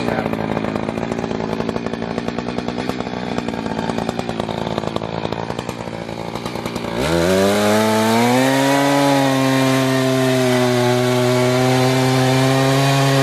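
Chainsaw running at lower speed, then revving sharply about seven seconds in and holding a steady high pitch at full throttle while cutting Osage orange wood.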